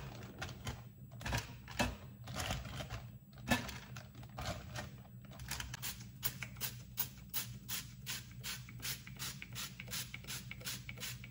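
Cooking-oil spray bottle pumped in quick repeated spritzes, about four a second, from about five seconds in. Before that come irregular clicks and knocks as food is laid into a plastic air fryer basket.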